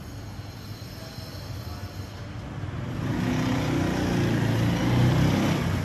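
Street traffic below, with a motorbike's engine getting louder from about three seconds in.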